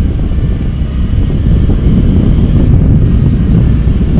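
TVS Apache RTR 200 4V's single-cylinder engine pulling as the motorcycle accelerates, mixed with wind buffeting the microphone. The sound grows louder about a second in.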